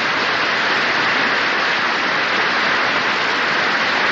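Studio audience applauding steadily, heard on an old radio broadcast recording.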